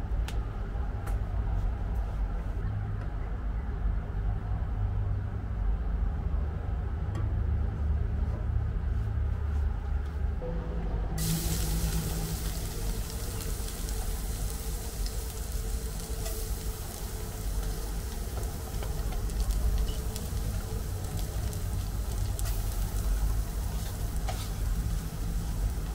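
A low rumble with scattered light clicks, then about eleven seconds in, food goes into hot oil in a pan and starts sizzling loudly, the sizzle continuing with small clicks and knocks throughout the rest.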